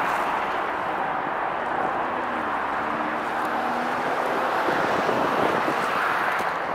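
Boeing 777's twin GE90 turbofan engines at high thrust on the runway: a steady, even jet rush with no breaks.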